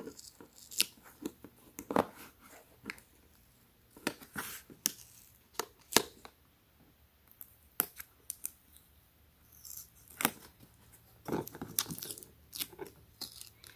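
Fingernails picking and scratching at a paper barcode sticker on a hard plastic case, peeling it up in small tearing pulls, with scattered light clicks and taps and short pauses between.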